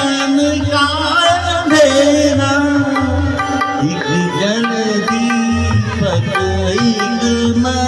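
A man singing a Hindi film song into a microphone, his voice bending and holding long notes over a recorded backing track with tabla.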